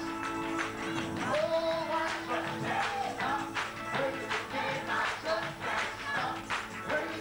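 Gospel choir and congregation singing a fast, simple chorus led by a man on a microphone, over a steady beat of handclaps about twice a second.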